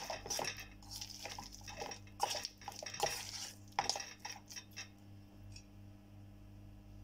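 A spoon stirring paneer cubes through a thick spice marinade, scraping and clinking irregularly against a stainless steel bowl. The stirring stops about five seconds in, leaving a faint steady hum.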